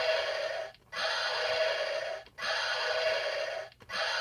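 1993 Kenner Jurassic Park T-Rex toy's electronic roar played through its small built-in speaker, set off again and again by its button: one roar ends just under a second in and three more follow, each a harsh, hissy roar of just over a second with brief gaps between.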